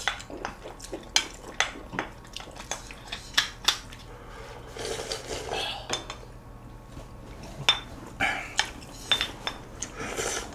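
A metal spoon clicking and scraping against a glass bowl, many small sharp clinks, then slurping and gulping as the bowl is tipped up to drink from it.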